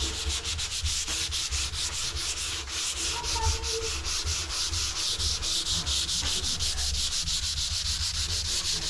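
Sandpaper being rubbed by hand over painted wooden dresser drawers in rapid, rhythmic back-and-forth strokes, several a second, wearing off old white paint.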